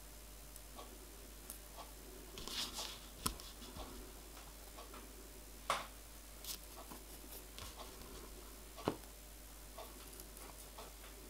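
Small steel bolts and nuts clicking and scraping against a model locomotive connecting rod's big end as they are fitted by hand: light handling rustle with three sharp ticks a few seconds apart.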